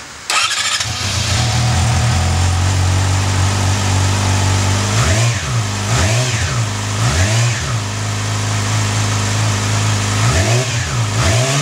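2012 Yamaha R6's 600 cc inline-four starting on the stock exhaust, catching at once and settling into a steady idle. The throttle is blipped in a quick series of rising-and-falling revs around the middle, then twice more near the end.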